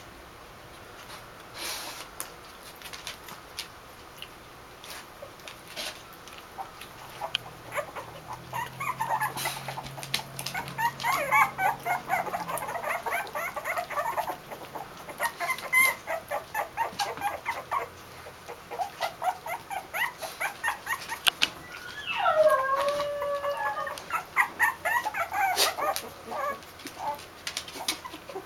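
Two-week-old Basenji puppies squeaking and whimpering in high, wavering bouts, loudest twice: a stretch about a third of the way in and a shorter one near the end. Many short clicks and ticks run beneath.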